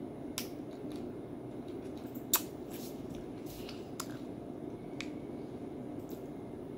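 Plastic snack wrapper crinkling and being torn open: a handful of short, sharp crackles, the loudest about two seconds in, over a steady low room hum.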